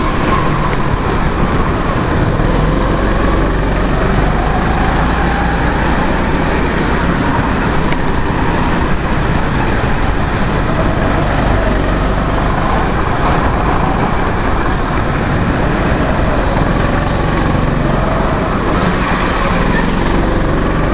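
Go-kart engine running hard through the corners, its pitch rising and falling with the throttle, heard from the driver's helmet.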